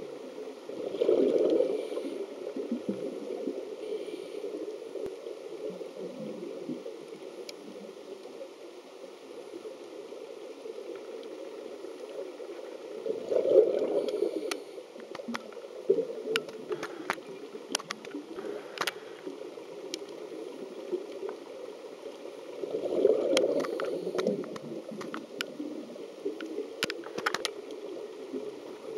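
Underwater, a diver's exhaled bubbles gurgle in three bursts about ten seconds apart over a steady muffled water rumble. Scattered sharp clicks come through, clustered near the middle and again near the end.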